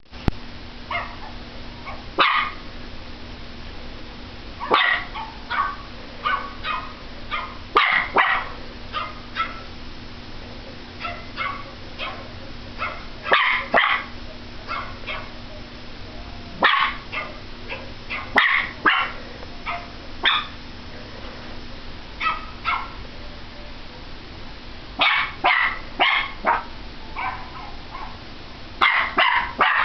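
Pomeranian barking at a computer screen: short, sharp yapping barks in irregular runs of one to several, with brief pauses between runs.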